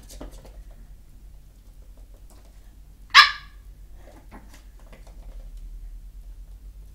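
A Chihuahua puppy gives one short, sharp, high bark about three seconds in. Faint softer noises follow.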